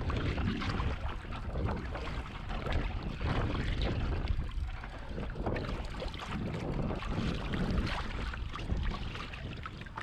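Wind rumbling on the microphone, with water lapping and splashing against a kayak hull on a choppy sea.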